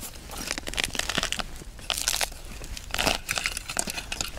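Rustling and light plastic clicks as a soft zippered tackle case is handled and a small ice-fishing rod with a plastic reel is taken out of it; the sound comes as an uneven string of small crinkles and clicks.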